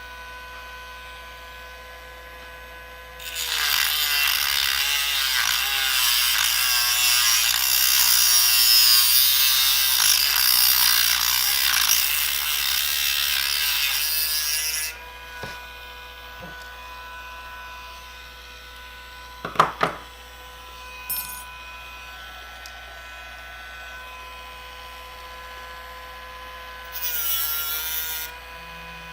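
A small handheld rotary tool running with a steady whine; from about three seconds in until about fifteen it grinds against the work, its pitch dipping under the load, and it grinds again briefly near the end. A few sharp clicks sound about twenty seconds in.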